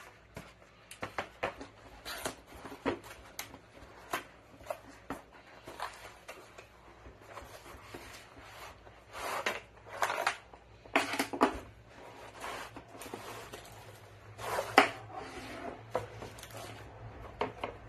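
Cardboard box and packaging being handled on a table: the box slid and opened, and the light bar, cable and adapter pulled out and set down, with scattered rustles, scrapes and knocks and one sharp knock late on. A faint steady low hum runs underneath.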